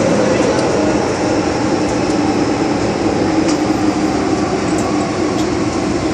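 Steady rumble of an MTR M-Train subway car running through a tunnel, wheels on rail and running gear heard from inside the car, with a constant low drone under it and a few faint ticks.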